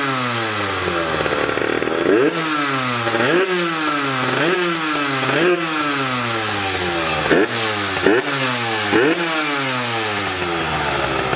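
Yamaha DT LC two-stroke engine, fitted with a 44 mm piston and a handmade exhaust, being blipped over and over: the revs jump up sharply and fall back, about once a second.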